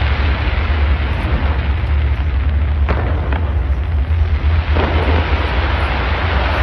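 Fireworks going off in a dense, continuous rumble of bursts and crackle over a deep steady boom. A couple of sharper cracks come about three seconds in, and a new swell of bursts near five seconds.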